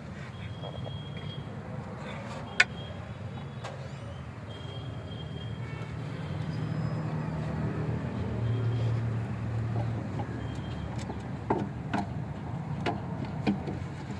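A low, steady vehicle engine rumble that swells for a few seconds in the middle, with scattered sharp clicks and knocks of tools on metal.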